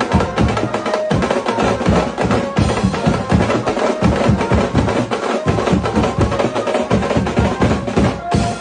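Instrumental music with fast, busy percussion: rapid drum strokes and wood-block-like clicks over a steady beat.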